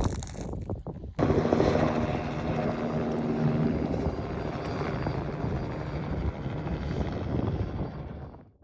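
A steady aircraft engine drone that cuts in abruptly about a second in, after wind and crunching sounds, and fades out near the end.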